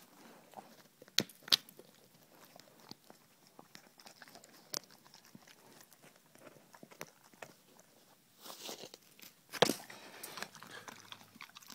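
German Shepherd chewing a barbecued pig ear: irregular wet crunches and bites, with a few sharp loud crunches about a second in and a louder cluster of chewing near the end.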